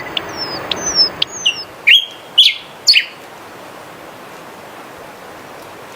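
A songbird calling: a quick run of short whistled notes that slur downward, then three loud, sharp chirps about two to three seconds in. After that only a steady hiss remains.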